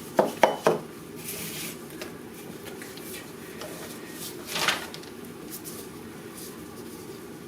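A few quick knocks and clatter of parts being handled, then a low steady hum with a short hiss about four and a half seconds in.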